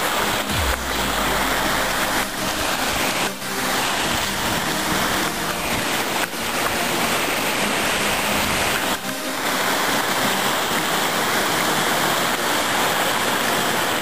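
Steady rush of floodwater from a river spilling over its banks into woodland after heavy rain, with a few soft bumps along the way.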